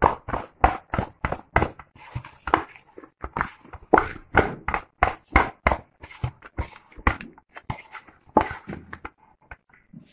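Soft, sticky yeast dough being beaten by hand in a stainless steel bowl: a steady run of wet slaps, about three a second, that stop near the end. The beating works air into the dough to make it light.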